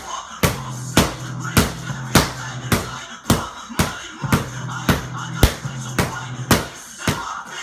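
Background music with a steady beat, about two sharp hits a second over a low bass line.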